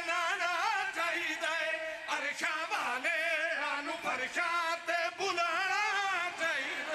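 Men chanting a devotional qasida into a PA microphone: a man's lead voice sings long, wavering held notes, with the men beside him joining in.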